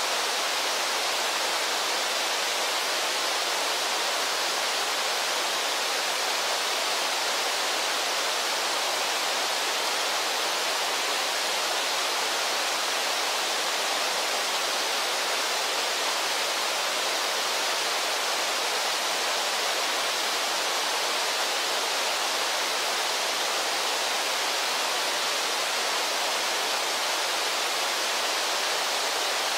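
Brooks Falls and the river rapids below it rushing: a steady, even wash of falling water that does not change.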